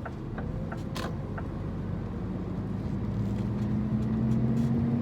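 Scania truck engine pulling away and picking up speed, its note rising steadily and getting louder over the last few seconds. Light regular ticking, about three a second, runs through the first second or so.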